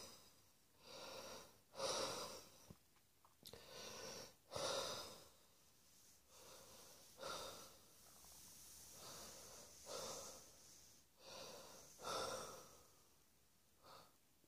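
A person breathing audibly, about a dozen breaths in and out at an uneven pace, some longer than others.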